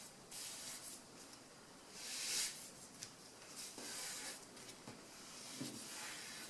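Paper being folded and creased by hand: soft rustling and rubbing swells as the sheet is pressed along a fold.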